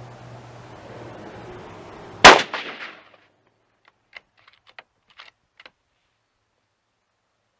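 A single shot from a Savage Model 10 bolt-action rifle in .308 Winchester, about two seconds in, echoing off for most of a second. A few seconds later come several light metallic clicks as the bolt is worked.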